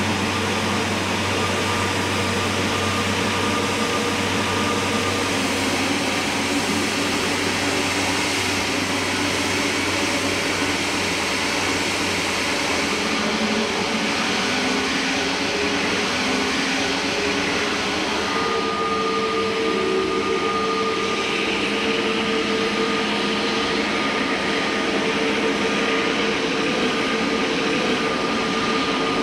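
Jet aircraft engines running: a loud, steady rush with a high whine, the whine shifting slightly higher and stronger about two-thirds of the way through.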